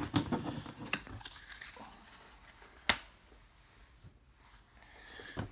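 Paper trading cards being handled and set down on a table: a few light clicks and flicks, then one sharp tap about three seconds in.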